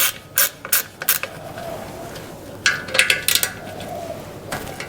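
Metal tool clicking and clinking against the exhaust's chrome trim fastenings while they are worked loose, with four sharp clicks in the first second, a cluster with a short metallic ring about three seconds in, and a few more near the end.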